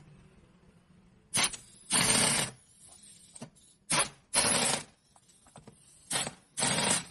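A compressed-air tool run in three pairs of hissing bursts, each a short blast followed by a longer one about half a second later.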